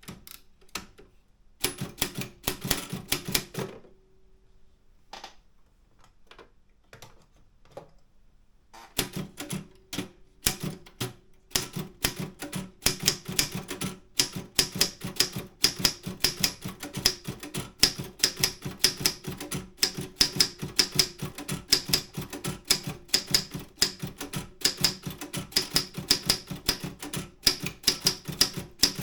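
Optima M10 manual typewriter being typed on: a short burst of keystrokes, a few scattered strikes, then a brisk, unbroken run of typebar strikes from about a third of the way in.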